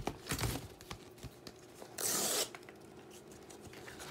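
A mailer envelope being ripped open: one short tear about two seconds in, lasting about half a second, with light handling sounds around it.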